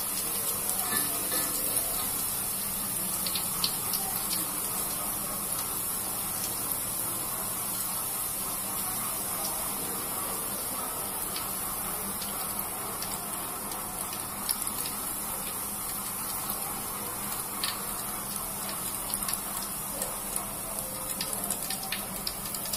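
Beaten egg frying in hot oil in a wok: a steady sizzle with scattered small pops and crackles.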